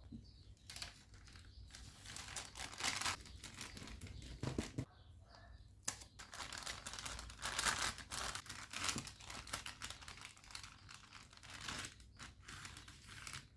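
Packaging material being handled during order packing: crinkling and rustling in irregular bursts, with small clicks between them.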